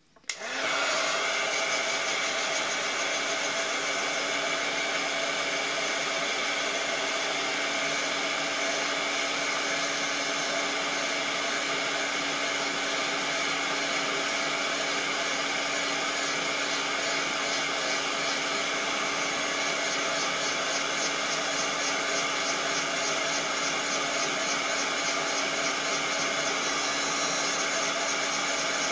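Handheld craft heat tool switched on and blowing steadily, drying the glue on a napkin-decoupage paper tag. It makes an even whirring fan noise with a steady hum.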